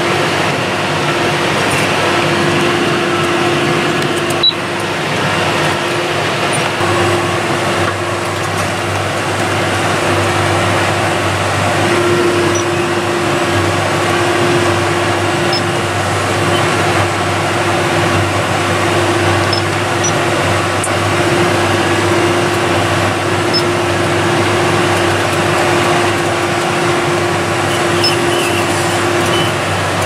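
John Deere 6210R tractor running steadily under load inside the cab while it powers a Claas Quadrant square baler through the PTO, a continuous drone with a held tone over it. A single sharp click sounds a few seconds in.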